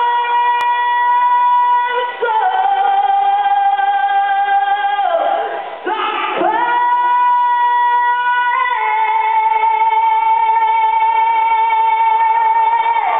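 Live rock music: a slow melody of long, steady high notes, each held two to four seconds, with a dip and a slide back up in pitch about six seconds in.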